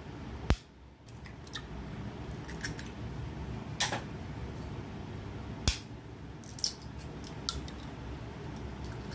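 Eggs being cracked and dropped into a plastic bowl: a few sharp cracks, two of them loud, and fainter small clicks over a steady low hum.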